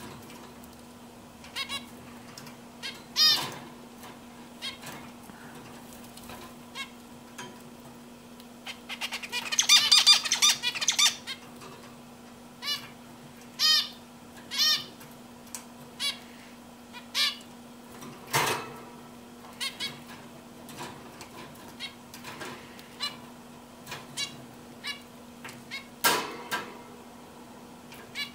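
Male zebra finch calling with short, nasal, repeated calls scattered through the clip. About nine seconds in it gives a louder, denser burst of song lasting around two seconds. A steady low hum runs underneath.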